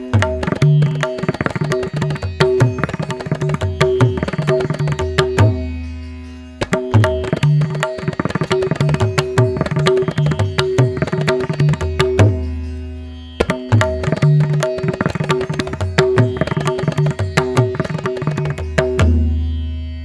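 Background instrumental music: a fast hand-drum rhythm over a steady drone. The phrase dies away and starts again twice, and fades out near the end.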